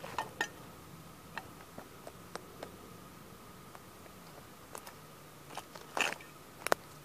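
Sneaker sole crunching and grinding the broken pieces of a 1:18 scale model toy car into soft dirt: scattered sharp cracks and crunches, the loudest about six seconds in.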